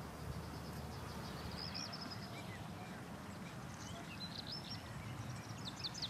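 Outdoor ambience: small birds chirping over a steady low rumble of background noise, with a few short calls and then a quick run of chirps near the end.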